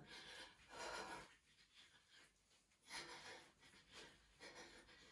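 Near silence, with a few faint, short breaths from a woman exerting herself in a squat-and-punch exercise.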